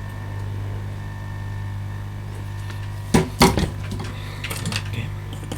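Small metal tools clicking and clattering on a workbench, loudest in a quick cluster about three seconds in, followed by a few lighter ticks, over a steady low electrical hum.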